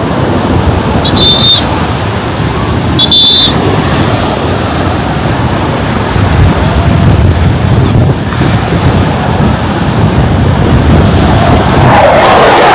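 Surf and wind on a beach, a loud, even rush with wind buffeting the microphone. There are two short shrill tones in the first few seconds, and a swelling, swooping noise builds near the end.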